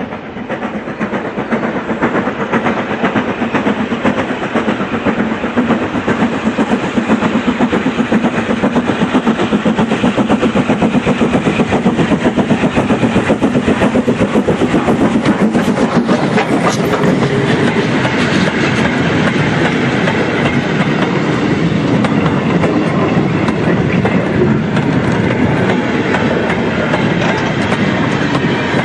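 Model train running on the layout's track: a steady, rapid clatter of small wheels over the rail joints, with the whirr of the locomotive's motor underneath, easing off near the end.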